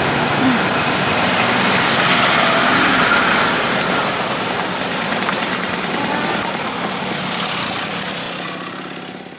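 Road traffic passing by: motorcycles and cars driving past with their engines running, a steady mix of engine and tyre noise that fades out near the end.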